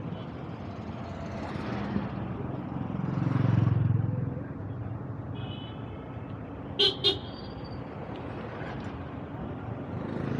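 City street traffic, with a vehicle passing close about three and a half seconds in and a horn sounding briefly, then two short, loud horn toots in quick succession about seven seconds in.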